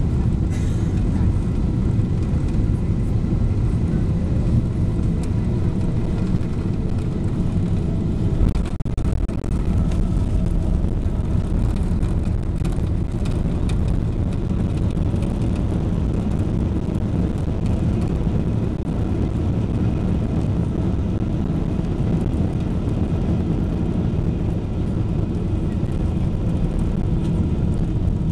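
Steady low cabin rumble of a Boeing 777-300ER's GE90 engines and airflow on final approach with flaps extended, heard from a window seat beside the wing.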